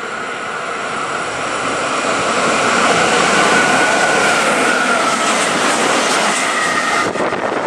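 Electric freight train of a DB Cargo locomotive and container flat wagons passing at speed. The rushing noise builds as it approaches and peaks with a steady high whine as the locomotive goes by, then the wagons' wheels clatter over the rails near the end.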